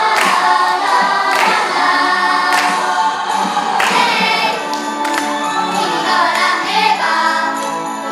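A group of children singing together in chorus over musical accompaniment with a regular beat.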